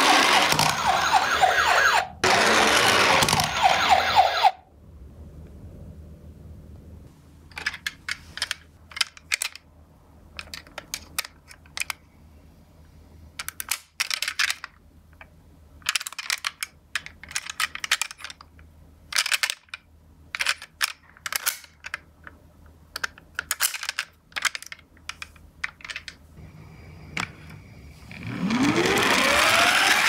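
A toy ambulance's electronic siren wails for the first few seconds and cuts off. A long run of small, irregular clicks and taps follows as a die-cast toy ambulance is handled over a cardboard box. A siren with rising wails starts again about two seconds before the end.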